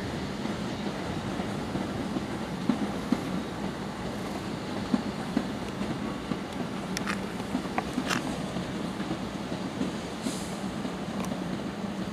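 Electric multiple-unit passenger train rolling past along the platform: a steady low hum, with sharp clacks of the wheels over rail joints and a few brief high squeaks from the wheels.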